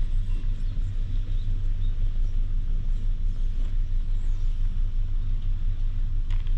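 Cat purring steadily while being stroked, a low, even purr that pulses about three times a second.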